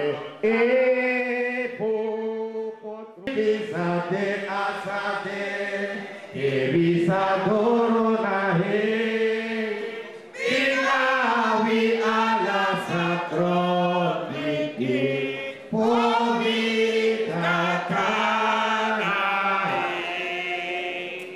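A group of people singing a chant together, in long held phrases with short pauses between them.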